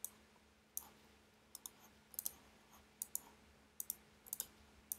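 Faint, irregular clicking of a computer mouse and keyboard, about a dozen single and paired clicks, over a faint steady hum.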